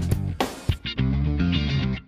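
Background music led by guitar, with sharp beats in the first second and then held notes.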